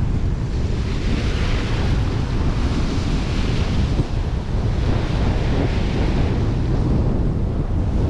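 Wind buffeting the microphone over the wash of waves on the shore. The hiss of the water swells and fades three or four times.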